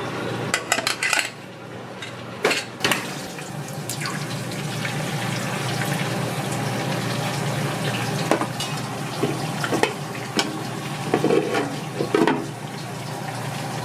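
Metal kitchenware clanking: utensils striking pans in irregular bursts over a steady hiss and low hum of kitchen equipment.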